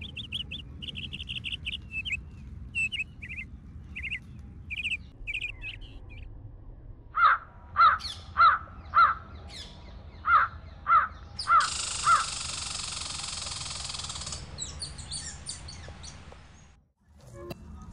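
A crow cawing loudly, about seven caws in two runs around the middle, over small birds chirping earlier on. A steady hiss follows for about three seconds.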